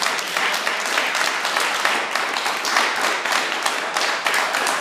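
A group of people clapping and applauding, a dense, steady patter of many hands.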